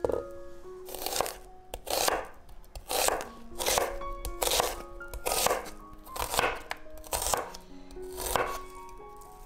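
A santoku-style kitchen knife slicing onion into half-rings on a wooden cutting board: about nine separate cuts, roughly one a second, each a sharp stroke through the onion onto the board. Background music plays under the cutting.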